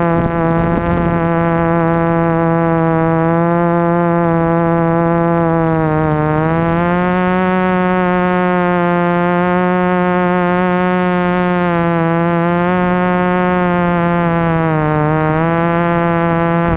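Electric motors and propellers of a small drone buzzing steadily, heard from the camera on board. The pitch dips briefly twice, about six seconds in and again near the end.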